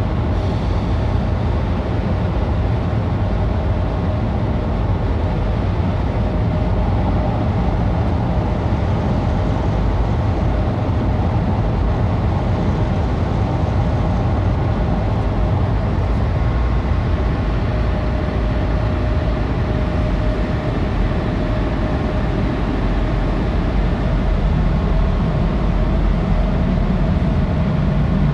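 Automatic car wash air-dryer blowers running with a steady loud roar and a faint held whine, heard from inside the car.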